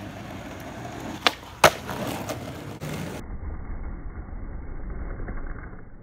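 Skateboard rolling on an asphalt street, with two sharp clacks of the board a little over a second in, less than half a second apart. From about three seconds in the wheel rumble goes on lower and muffled.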